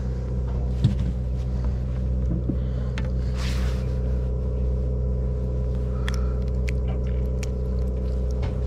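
Boat engine running steadily: a constant low drone at an unchanging pitch. A few light clicks about six to seven seconds in.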